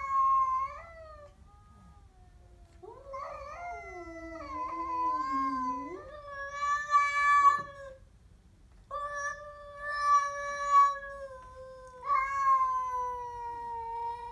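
Siamese cat yowling in long, drawn-out, wavering cries, four in a row with short breaks between them. It is a territorial threat at a stray cat on the other side of a glass door.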